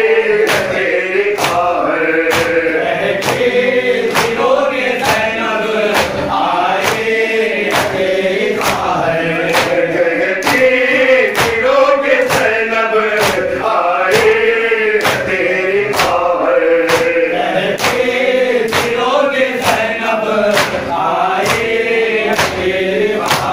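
A group of men chanting a noha (Shia lament) together into a microphone, with sharp slaps of hands beating on bare chests (matam) keeping an even beat about twice a second.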